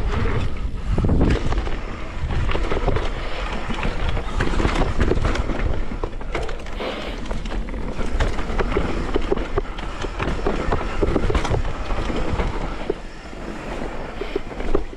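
Downhill mountain bike rolling fast over a rough dirt trail: a continuous tyre and rolling noise full of quick knocks and rattles, with a sharp knock just before the end.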